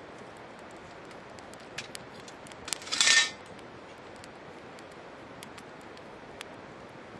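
A short, loud clatter of metal utensils or cookware about three seconds in. Behind it are a steady hiss and scattered small crackles from the wood fire.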